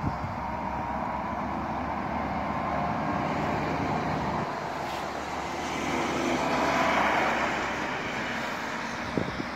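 A heavy truck passing on a road: engine and tyre noise over steady traffic, growing to its loudest about seven seconds in and then easing off.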